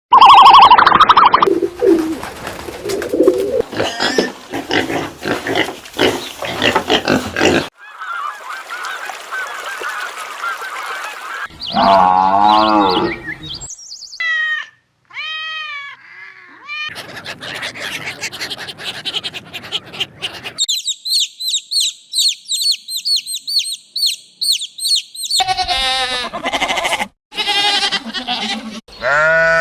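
A string of different farm animal and bird calls, each segment cut off abruptly and the next one begun, about six in all.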